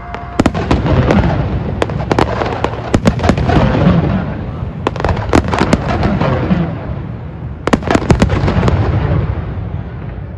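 Fireworks display: firework shells bursting in repeated sharp bangs at irregular intervals, with a rapid cluster of bangs about eight seconds in, over a constant noisy rumble between the bangs.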